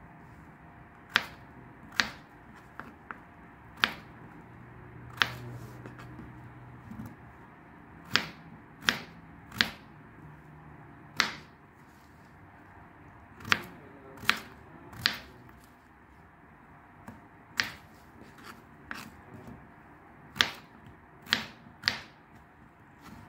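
A kitchen knife cutting through peeled raw potato and striking a plastic cutting board: sharp, single chops at an uneven pace, often two or three in quick succession, then a pause.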